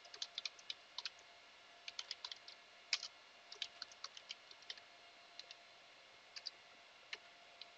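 Computer keyboard keys being typed in quick, irregular runs of light clicks, thinning to a few single keystrokes in the last few seconds.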